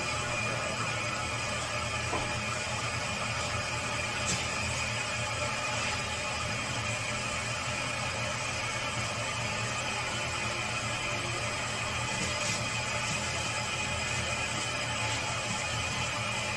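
Steady machine hum made of several constant tones over a noisy bed, with a couple of faint clicks.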